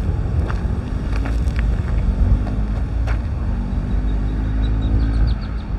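Wind buffeting the phone's microphone in a loud low rumble, over a steady low hum, with a few light clicks.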